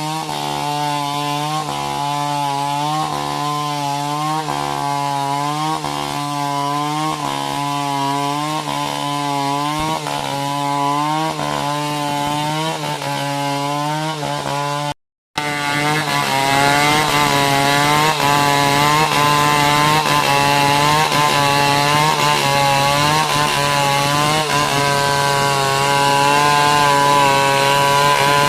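Chainsaw running under load while cutting a coconut tree trunk, its pitch dipping and recovering in a steady rhythm about every two-thirds of a second. The sound drops out for an instant about halfway through, then carries on louder.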